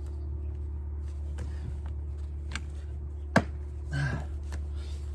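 Scattered light clicks and taps of hands working on parts, over a steady low hum, with one sharp, louder click about three and a half seconds in.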